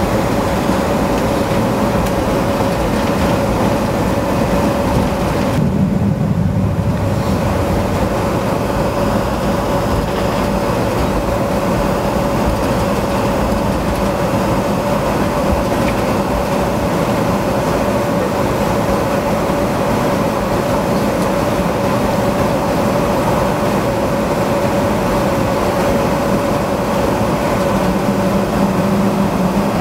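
Steady jet airliner cabin noise while taxiing: the engines running at low power, a constant whine over an even background of noise.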